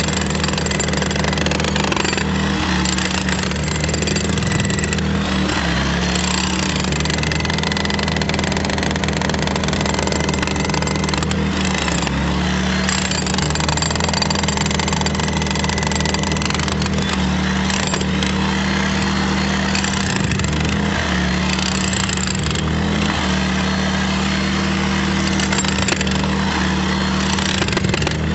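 Predator portable gasoline generator running steadily under load as an engine drone, mixed with the continuous noise of a corded electric power tool working into a concrete footer.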